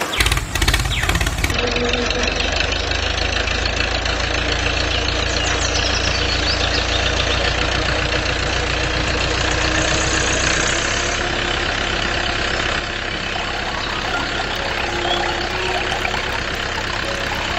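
A motor running steadily, like an idling engine, with a low hum and a fast, even knock; it is turning a miniature belt-driven water pump. The level drops slightly about thirteen seconds in.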